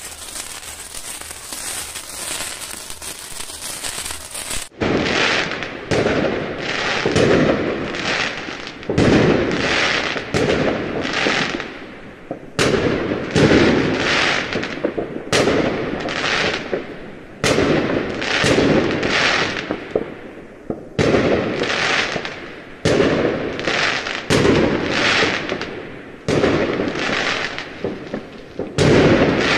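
Fireworks going off: a string of bursts, roughly one a second, each starting sharply and fading away. The bursts begin about five seconds in, after a stretch of steady hiss.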